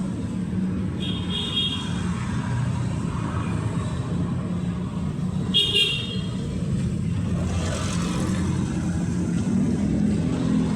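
Street traffic with engines running steadily, and two short, high horn toots, about a second in and again near six seconds. A vehicle passes close by around eight seconds.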